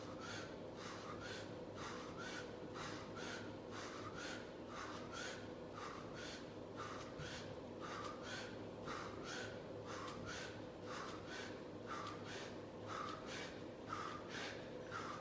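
A man breathing hard and rhythmically while doing pull-ups: short, forceful breaths about twice a second, over a steady low hum.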